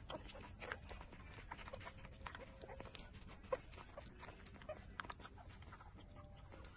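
Four-week-old puppies suckling at their mother's teats: faint, irregular wet sucking and smacking clicks.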